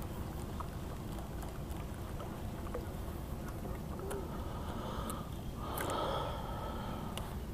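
Steady wind rumble on the microphone, with a brief whirring from a fishing reel being cranked as the senko is reeled up to the boat, loudest about six seconds in.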